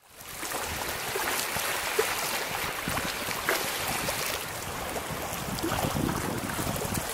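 Sea water lapping and washing over a low concrete walkway, with wind on the microphone: an even hiss with small irregular splashes.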